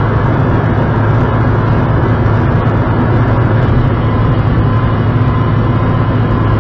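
Steady road and engine noise of a car driving on a motorway, heard from inside the cabin by a dashcam, with a constant low hum and no sudden events.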